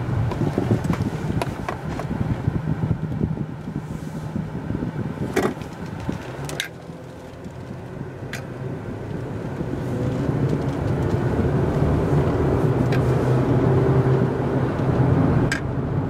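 Car engine and road noise heard from inside the cabin as the car pulls out and picks up speed, dipping briefly about six seconds in, then growing louder. A few sharp clicks are heard along the way.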